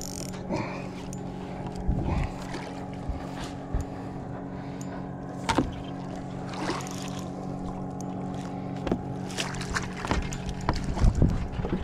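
Steady low hum on a bass boat, with scattered knocks and splashy sounds while a big bass is fought on the line; the knocks come thicker and louder near the end.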